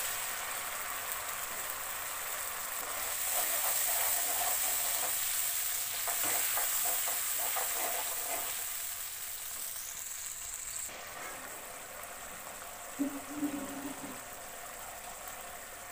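Ground spice paste sizzling as it goes into hot oil and fried onions in a metal kadai, with a spatula stirring through it in the middle. The sizzle dies down after about eleven seconds as the mixture settles.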